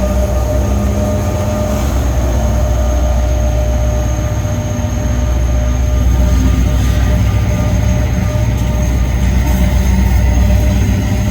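Diesel locomotive running under power as it pulls a passenger train out of a station: a loud steady low drone with a steady high-pitched whine.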